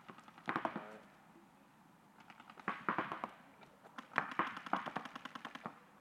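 Paintball markers firing rapid strings of shots, many pops a second: one short string about half a second in, then two longer strings near the middle and toward the end.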